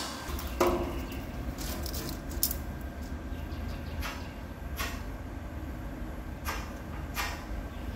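A marker stick scratching short strokes on a steel plate along a steel rule, several separate strokes, over a steady low hum.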